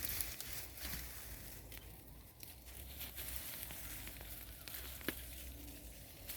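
Faint crackling and rustling of wood-chip mulch and soil being dug through by hand to uncover sweet potatoes, with a few sharp clicks.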